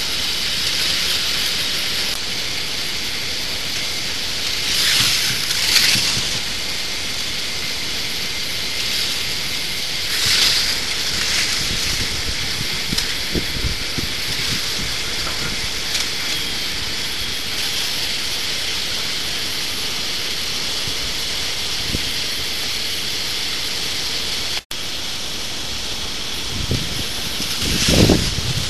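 K'NEX model roller coaster running: a steady rushing hiss, with the train's wheels rattling along the plastic track in louder swells about five, ten and a half and twenty-eight seconds in.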